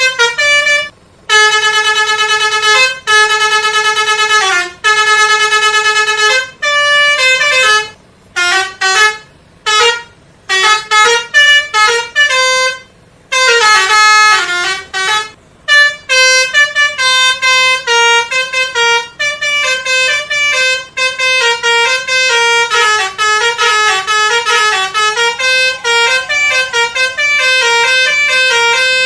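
Multi-tone 'telolet' bus horn playing tunes. A few notes are held for a second or two, then come short choppy blasts, and then a long run of quickly changing notes.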